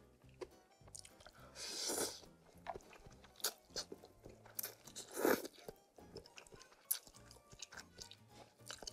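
Close-up eating of spicy instant noodle soup: crisp crunching and chewing of a crunchy topping, with two longer, louder slurps about two and five seconds in. Soft background music underneath.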